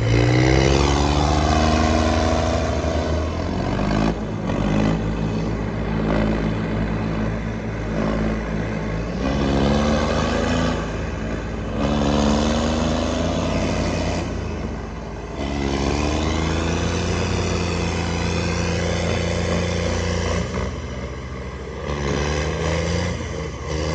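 Heavy diesel tractor engines revving hard under load in a tug-of-war. The pitch climbs and sags repeatedly, every few seconds, as the engines strain against the pull.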